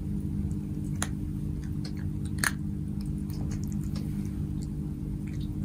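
A domestic cat chewing dry kibble picked from a mash of boiled pumpkin, with scattered sharp crunches, the two loudest about one and two and a half seconds in, over a steady low hum.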